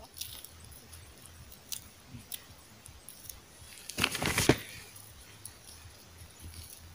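Faint rustling and a few small clicks of hands working in moss and twigs while picking chanterelle mushrooms, with a louder rustle about four seconds in.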